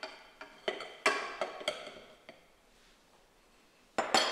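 A glass mixing bowl clinking against a stand mixer's stainless steel bowl as flour is tipped in. There are several sharp ringing knocks in the first two seconds or so, then two loud clinks near the end.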